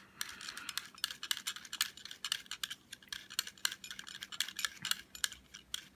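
Rapid, irregular light clicks of an Iwata 0.30 airbrush needle being spun by hand against the stone of a SharpenAir repair tool, grinding its bent tip back into shape.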